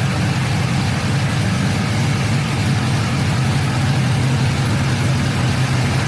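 A 2000 Chevy Silverado's LS V8 idling steadily, with its electric radiator fans running hard and drawing a constant rush of air through the radiator.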